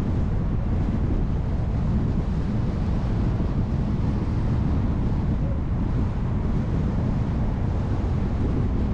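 Steady low rumble of wind buffeting the microphone, mixed with road noise from a car driving along.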